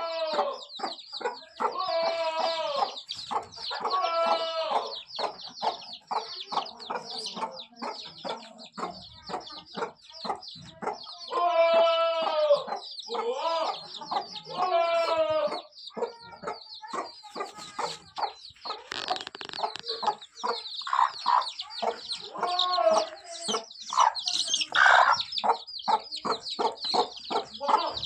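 Kadaknath chicks peeping continuously in rapid, high calls, with the hen clucking. Several louder, drawn-out calls of about a second each stand out, twice close together about twelve and fifteen seconds in.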